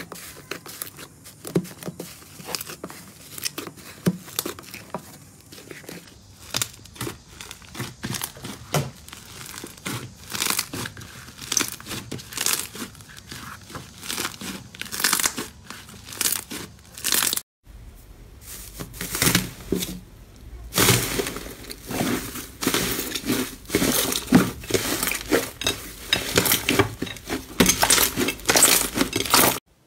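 Hands squeezing, pressing and kneading slime, making dense wet crackling and popping with many sharp little clicks. A short break just past the middle, after which the crackling is louder.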